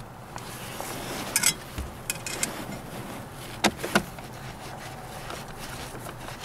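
Hands handling a car's plastic heater blower and its housing under the dashboard: scattered light clicks, then two sharp plastic knocks close together about three and a half to four seconds in.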